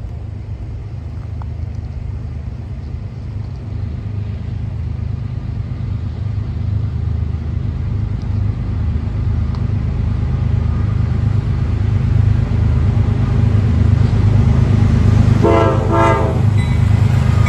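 CSX diesel freight locomotives approaching, a low rumble growing steadily louder. Near the end the lead locomotive sounds two short horn blasts in quick succession.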